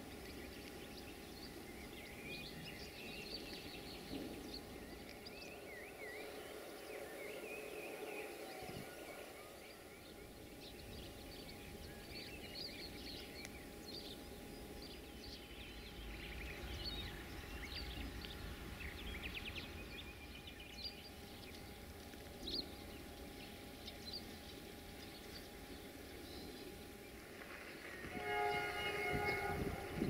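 Birds chirping over a faint low rumble. About two seconds before the end, an LDE2100 diesel-electric locomotive's horn starts sounding: a steady chord of several tones, the loudest sound here.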